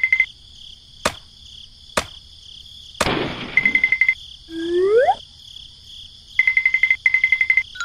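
Dubbed cartoon sound effects over a steady insect-chirring background. Two sharp knocks and then a heavier knock about three seconds in are followed by a quick rising whistle-like glide. Short bursts of a fast trilling beep come and go.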